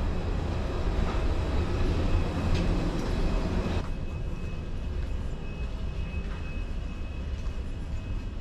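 Steady low rumble of a moving vehicle, with a hiss over it that drops away about four seconds in.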